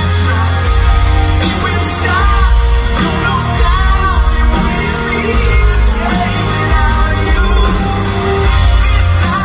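Live rock band playing at full volume through a concert PA: a male lead vocalist sings over electric guitars, bass and drums, with no break.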